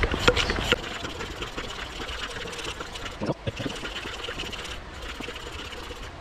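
Lezyne mini hand pump inflating a tubeless gravel bike tyre: rhythmic pump strokes, about three a second, loud in the first second and then fainter. The front tyre is being brought back up after losing about half its pressure on its first tubeless ride.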